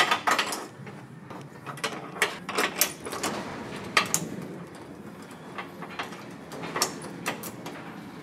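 Metal door latch mechanism being handled by hand: irregular metallic clicks and knocks as the toothed latch plate and bracket are worked.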